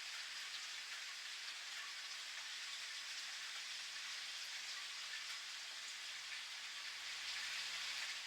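Steady rain pattering on surfaces, an even hiss dotted with individual drop ticks. A faint low rumble joins in near the end.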